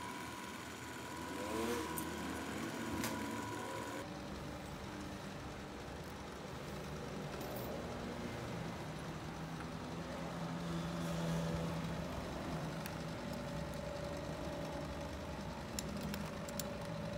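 Steady low mechanical hum of workshop machinery. A high steady tone cuts off abruptly about four seconds in.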